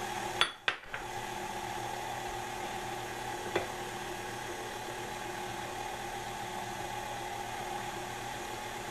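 KitchenAid stand mixer motor running steadily as its beater turns through thick brownie batter. There is a brief dropout with a few clicks about half a second in, and a single click a few seconds later.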